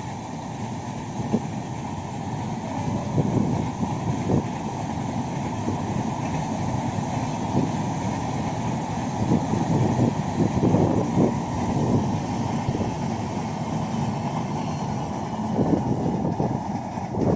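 A train passing on the line: a steady rumble of wheels on rail, broken by many short knocks.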